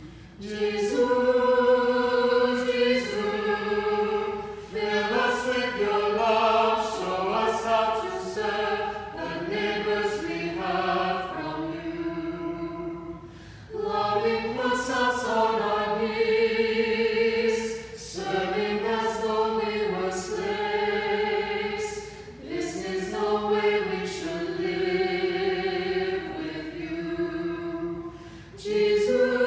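Small mixed choir of men's and women's voices singing a cappella in several parts, in phrases with brief breaks between them.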